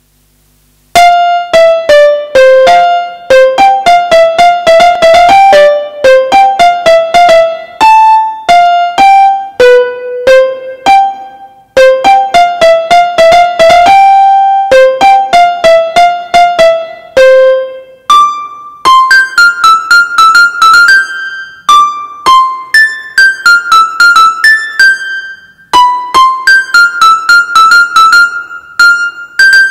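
Yamaha PSR-F51 portable keyboard playing a piano voice, heard straight from its line output with no room sound. A simple melody is played note by note, starting about a second in. After about eighteen seconds it moves higher and quicker, with repeated notes.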